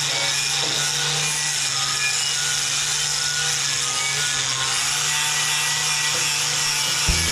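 Angle grinder with a flap disc grinding paint off a steel truck frame cross member, running steadily under load, with a constant motor hum beneath the grinding noise. It stops near the end.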